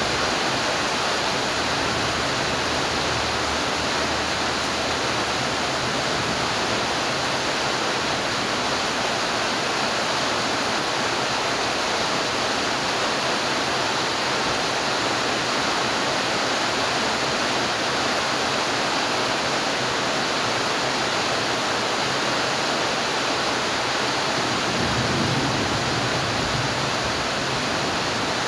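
Steady rain falling, a dense, even hiss with no single drops standing out, with a slight low swell near the end.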